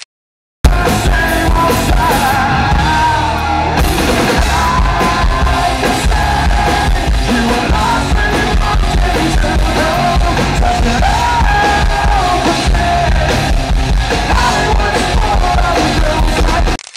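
Rock band playing live: a male lead singer over electric guitars, bass and drums, loud. It starts abruptly after a brief silence about half a second in.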